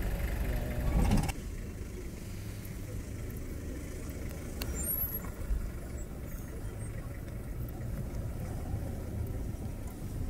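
Safari vehicle engine idling with a steady low hum. A louder passage at the very start cuts off suddenly about a second in.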